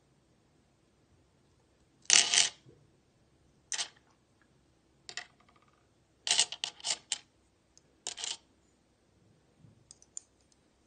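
Small rough stones clinking against each other and a glass mirror tray as they are set in place: a short clatter about two seconds in, single sharp clicks near four and five seconds, a quick run of clicks a little after six seconds, and another short clatter around eight seconds.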